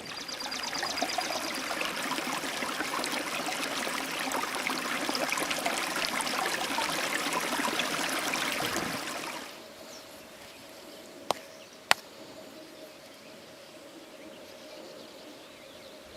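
River waterfall rushing, a steady hiss of falling water that stops abruptly about nine and a half seconds in. It gives way to a much quieter background with a faint steady hum and two sharp clicks.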